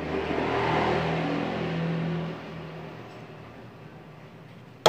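A motor vehicle passes by: its engine noise swells in the first second or two and fades away after about two and a half seconds. A single sharp click comes right at the end.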